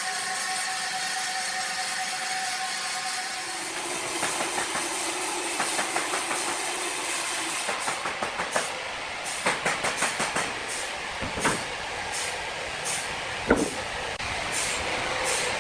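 Sawmill machinery running with a steady hum and hiss, then irregular knocks and clatter of wood and metal that grow busier, with one sharp loud bang near the end.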